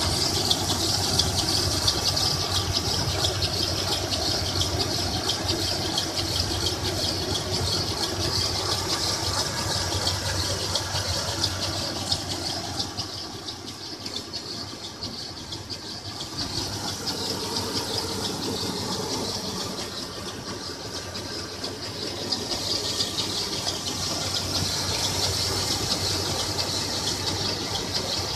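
1996 Toyota 4Runner engine running with a steady high-pitched noise over its low hum, easing off a little twice in the middle before coming back. The noise is an unexplained new fault that the owner suspects is in the timing chain or water pump area.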